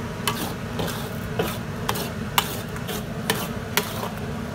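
A spatula stirring and scraping thick mung bean paste around a pan, with irregular scrapes and sharp taps against the pan over a steady low hum.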